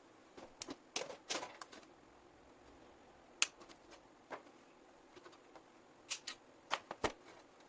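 Hands handling PC cables and plastic parts: irregular sharp clicks and short rustles, in small clusters with pauses between them.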